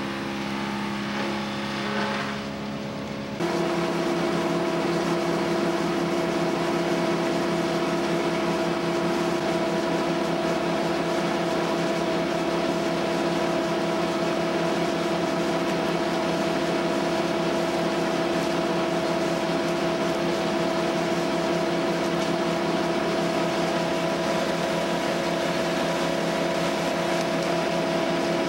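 Small engine running steadily at high speed. About three seconds in it jumps to a louder, even drone that holds without change.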